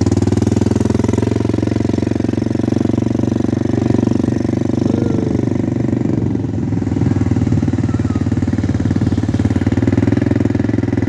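ATV (quad bike) engine running as it is ridden across beach sand: a steady, loud engine drone with a rapid firing pulse, dipping slightly about six seconds in.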